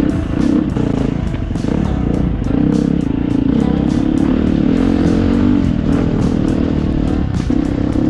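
Dirt bike engine running on a trail ride, mixed with background music with a regular beat.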